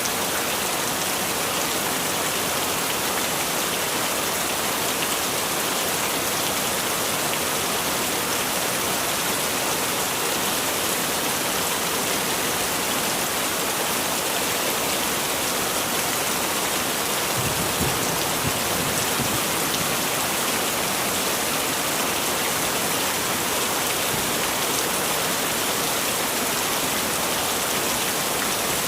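Heavy rain falling steadily, an even hiss of dense drops. A brief low rumble rises under it about two-thirds of the way in.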